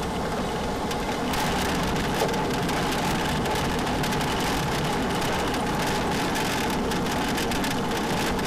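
Engine of a single-engine Cessna trainer at idle, heard inside the cockpit along with steady cabin and rolling noise as the plane rolls out on the runway after landing. From about a second in, a fine crackling rattle joins the steady noise.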